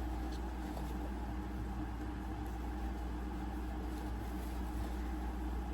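Steady low mechanical hum, like a fan or air-conditioning unit running, with a few faint light clicks of small objects being handled.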